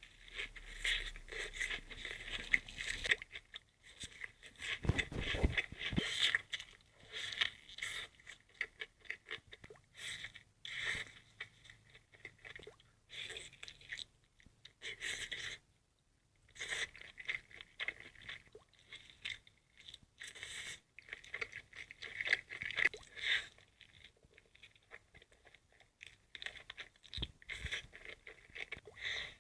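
Close-miked ASMR eating: crunchy food being bitten and chewed, an irregular run of crisp crunches with a short break about halfway through.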